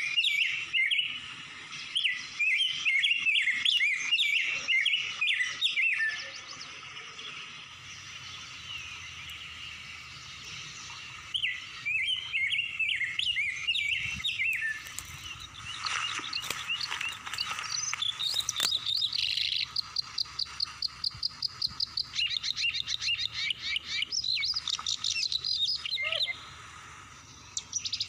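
Birds chirping in bursts of quick, rising and falling notes, then, from about halfway through, a long run of fast, evenly repeated notes that stops shortly before the end.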